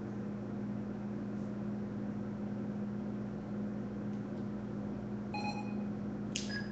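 A steady low hum, like machinery or an electrical appliance running. A short higher tone sounds briefly about five seconds in.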